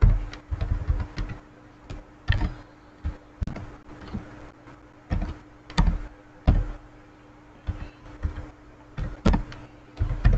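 Computer keyboard keystrokes: irregular typing with short quick runs of keys and pauses between them, over a faint steady hum.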